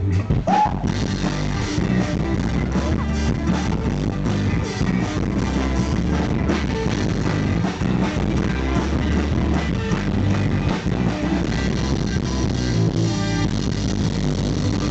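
Live rock band playing an instrumental stretch, with drums, bass and electric guitar, heard loud and distorted through the PA speakers.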